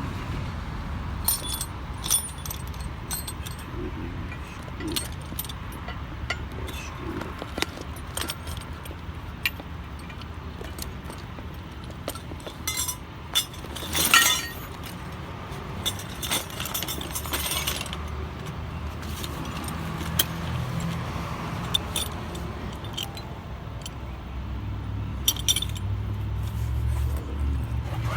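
Metal hand tools and car parts clinking and rattling, with scattered sharp clicks and one louder clatter about halfway through, during hands-on brake and wheel work. A steady low rumble runs underneath and grows stronger near the end.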